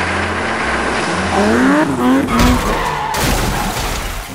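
Sports-car sound effect of tyres skidding, with an engine note gliding up and down in the middle. About three seconds in it changes suddenly to a harsher rush of noise.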